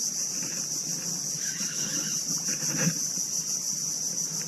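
A steady, high-pitched insect chorus drones on without a break, with a soft knock nearly three seconds in.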